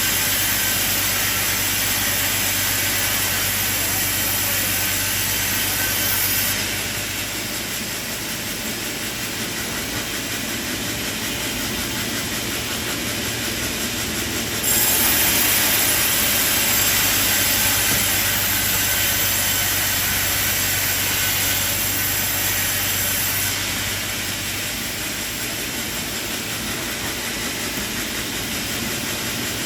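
Sawmill machinery running with a steady hum and hiss, the level shifting abruptly three times.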